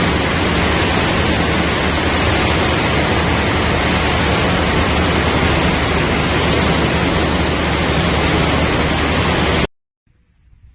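PET bottle recycling and washing machinery running with water, giving a steady, loud rushing noise that cuts off abruptly near the end.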